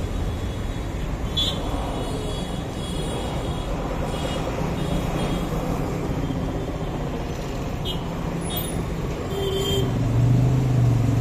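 Road traffic noise: a steady low rumble of passing vehicles, with one engine's low hum swelling louder near the end.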